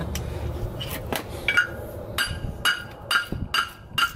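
Hammer blows on a crusty old Datsun 510 front brake rotor and hub, knocking the seized parts loose. A steady run of sharp metallic strikes begins about a second in, about two a second, each one ringing briefly.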